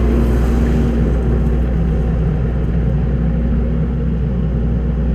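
Kubota skid steer's diesel engine running steadily under work. Cuts off suddenly at the very end.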